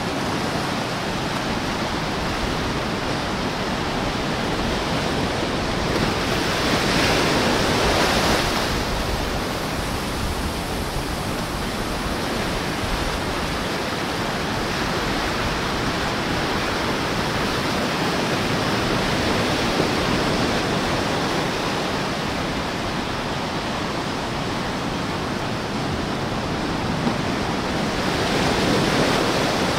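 Small ocean waves lapping and washing up the sand and between rocks at the water's edge: a steady wash of surf that swells louder about six to eight seconds in and again near the end.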